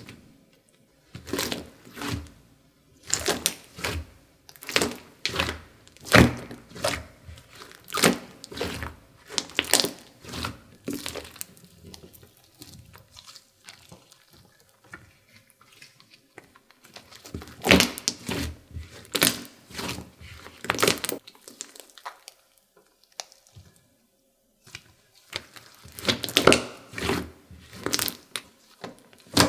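Slime being pressed and folded by hand, giving bursts of sharp crackling and popping clicks every second or so, with two short pauses.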